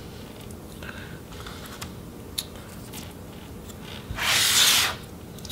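Laptop's metal chassis sliding and scraping across a tabletop as it is turned. The scrape is one short rubbing noise about four seconds in, after a few faint clicks of handling.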